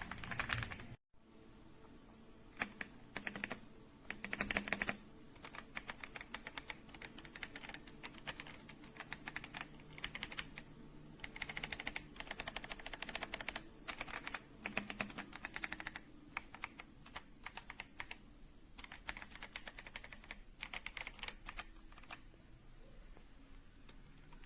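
Typing on an AJAZZ AK820 75% mechanical keyboard: quick runs of key clicks in bursts, with short pauses between them.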